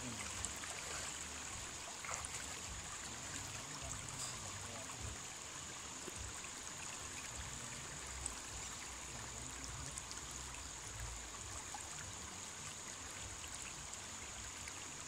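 River water flowing and rippling steadily over shallows. A constant high-pitched hiss runs over it.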